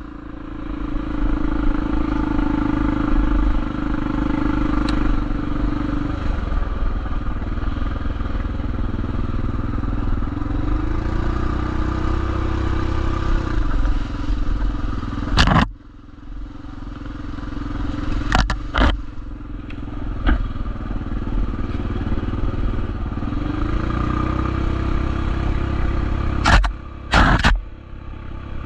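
Motorcycle engine running under way, its note climbing twice as it picks up speed, over heavy wind rumble on the microphone, with a few sharp knocks and clatters.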